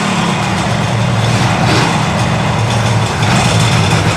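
A 1972 Kawasaki S2 350's three-cylinder two-stroke engine running loudly, just fired up from ice cold after its carburettors were rebuilt.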